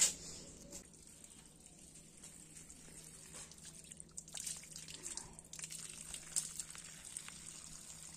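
A sharp click, then water pouring from a garden hose and splashing onto wet brick paving and a hand held in the stream, with uneven splashes that get busier about halfway through.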